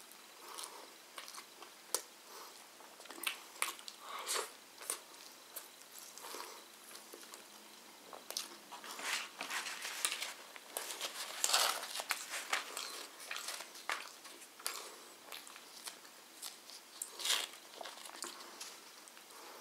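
Close-up eating: chewing and biting with many sharp wet clicks, and longer rustling as thin flatbread is handled and torn, loudest a little past halfway.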